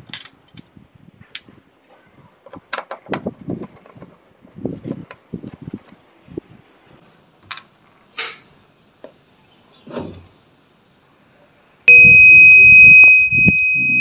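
Loose clicks and knocks of handling and button presses on an Electrolux top-loading washing machine, then about 12 seconds in its control-board buzzer gives one loud, steady, high-pitched beep lasting about two seconds, breaking into shorter beeps at the end. The machine has the fault that stops it starting and shows error E3.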